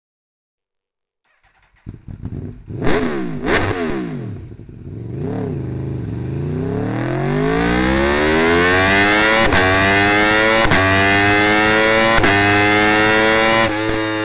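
Aprilia RSV4's V4 engine revving hard, starting about two seconds in: a few quick blips of the throttle, then a long climb to high revs that is held, broken by brief cuts every second or so.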